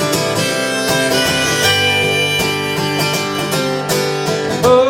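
Acoustic guitar strummed through an instrumental break between vocal lines of a folk song, with sustained notes ringing over the chords. A singing voice comes in near the end.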